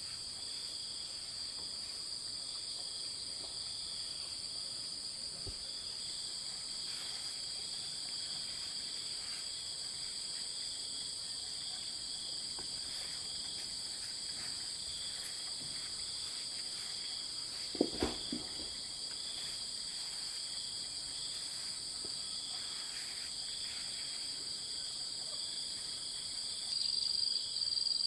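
Steady high-pitched insect chorus, several insects trilling at different pitches without a break, growing louder near the end. A single brief knock about two-thirds of the way through.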